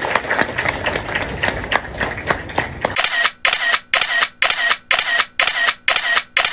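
Camera shutter clicking: a dense, irregular spatter of clicks, then from about halfway a steady rapid series of shutter releases, about three a second.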